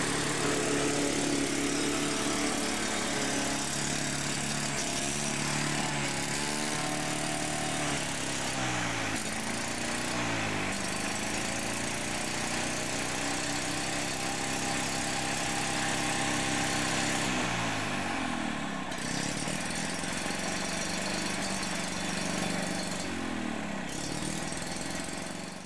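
Sachs KM3 110 cc Wankel rotary engine of a Wolf rotary lawn mower running while mowing grass. Its pitch sags and recovers a few times.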